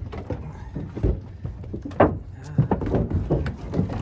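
Irregular knocks and clunks from sheet-metal ductwork on an air-conditioning plenum box being worked loose, the loudest about two seconds in.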